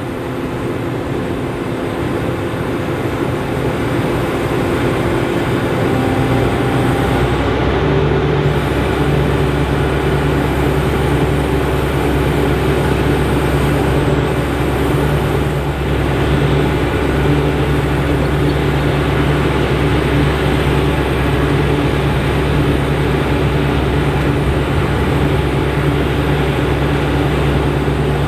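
Fendt IDEAL 9T combine running, a steady loud machine drone with a low engine rumble that builds over the first several seconds and then holds.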